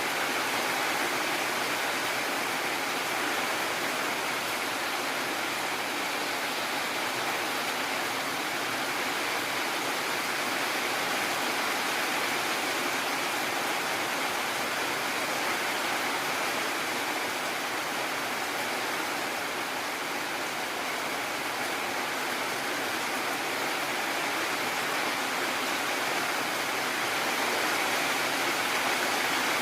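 Heavy rain falling steadily: an even, unbroken hiss with no thunder or separate drops standing out.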